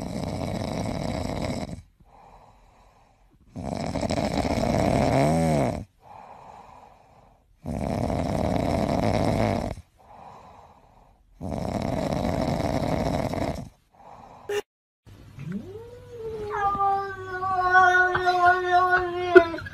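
A sleeping grey cat snoring: four loud snores of about two seconds each, roughly every four seconds, with faint breaths between them. Then a cat gives one long meow that rises in pitch and holds steady.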